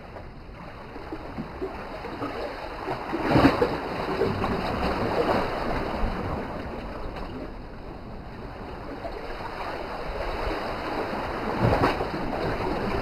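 Small sea waves washing against a rocky shore, swelling and easing, loudest about three and a half seconds in and again near the end.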